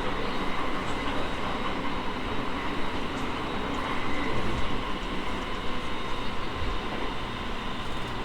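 Running sound of a JR East E217 series electric train heard inside the car: a steady rumble of wheels and running gear with a faint steady whine.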